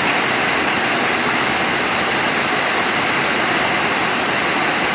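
Rain falling, a steady loud hiss with no break.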